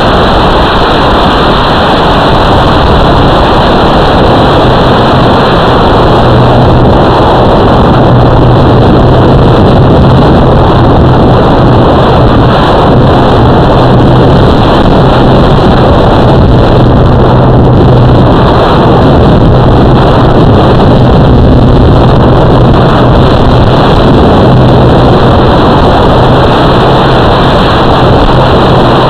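Loud, distorted, steady rushing noise with a constant low hum, from a running RC vehicle's motors and wind.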